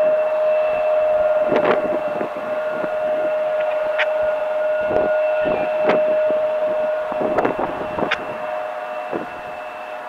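Federal Signal 2001-130 outdoor warning siren sounding a steady tone at a distance, its level slowly easing toward the end. A few brief clicks and bumps come over it.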